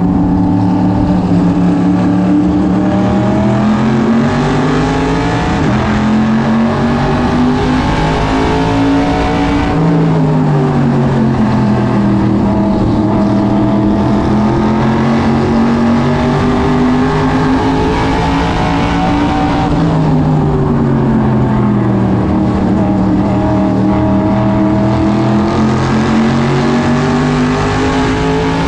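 SK Modified race car's small-block V8 heard from inside the cockpit at racing speed. The revs climb steadily for several seconds and then drop sharply as the driver lifts, about every ten seconds, down each straight and into each turn.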